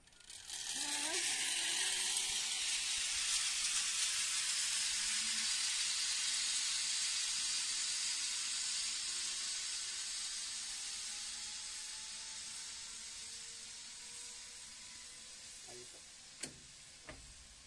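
Zip line trolley pulleys running along the steel cable as a rider sets off: a loud hissing whir that starts about half a second in and slowly fades as the rider travels away, with a faint whine rising in pitch beneath it.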